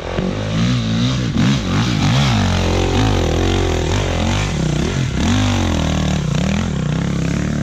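Dirt bike engine revving up and down under throttle, its pitch rising and falling several times, then running steadier near the end.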